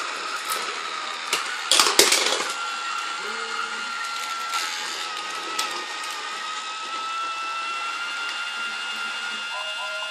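Battery-powered Lego Duplo train running on plastic track: a steady, slightly wavering high motor whine with rattling from the wheels and track. A louder burst of clattering comes about two seconds in.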